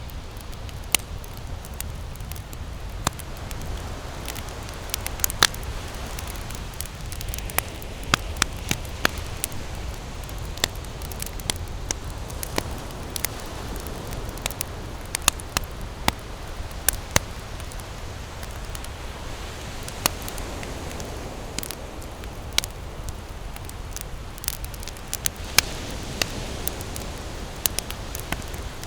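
Wood campfire burning and crackling: irregular sharp pops and snaps, several a second, over a steady low rumble.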